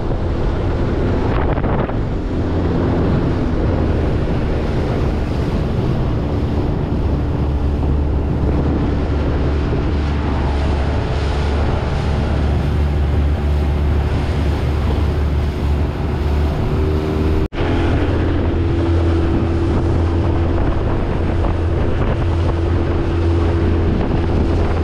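Outboard motor running steadily at speed as a small boat drives across the water, with wind buffeting the microphone and water rushing along the hull. The sound breaks off for an instant about two-thirds of the way through, then carries on.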